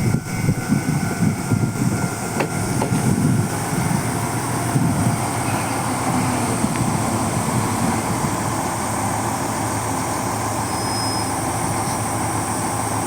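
Moka Railway train: an uneven rumble that settles after a few seconds into a steady running drone.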